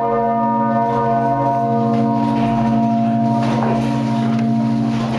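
Peal of some twenty church bells ringing together, heard close up from inside the belfry: a dense, sustained wash of overlapping bell tones, with fresh strikes about three and a half seconds in and again near the end.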